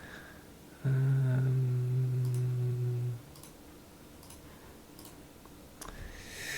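Low steady synthesizer tone from a VCV Rack software modular patch, sounding for about two seconds and then dropping away, its volume brought in and out by a random LFO. A few faint clicks.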